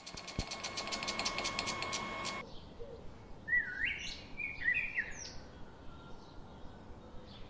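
Rapid mechanical clicking, about ten clicks a second over a steady hum, that cuts off suddenly about two and a half seconds in. Then a songbird sings short whistled phrases, sliding down and up in pitch, several times.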